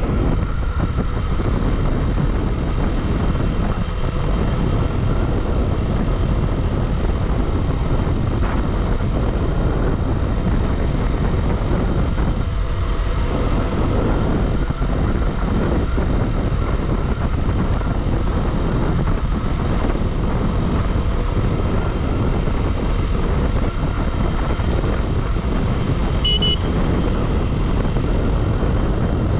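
Motorcycle riding at speed: a steady rush of wind over the microphone with the engine and road noise underneath. A brief high beep sounds near the end.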